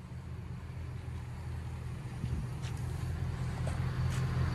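1998 Ford F-150's Triton V8 idling through shorty headers and a Y-pipe into straight-piped dual exhaust: a steady low rumble that grows gradually louder.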